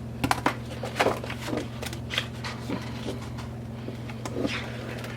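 Sheets of scrapbook cardstock and chipboard being handled and shuffled: a string of irregular paper rustles and light knocks, with a steady low hum underneath.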